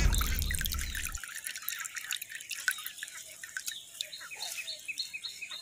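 Water dripping in small, scattered drops and clicks, with short high chirps in the background; a low rumble fades out in the first second.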